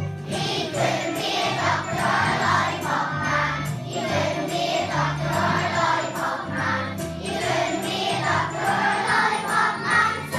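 A group of voices singing a song over a musical backing with a bass line and jingling bells.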